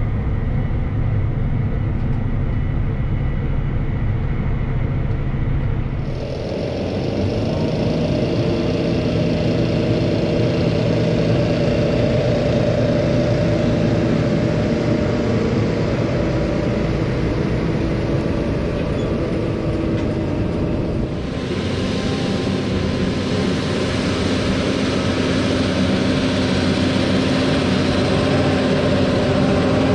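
Versatile farm tractor diesel engines running steadily. The engine note changes abruptly twice, about 6 and 21 seconds in.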